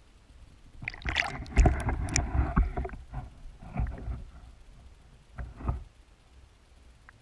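Muffled water sloshing and knocks picked up by a submerged camera. The busiest stretch is between about one and three seconds in, with a few separate knocks afterwards.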